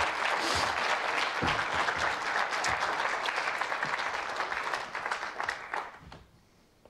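Studio audience applauding, a dense patter of many hands clapping that fades out about six seconds in.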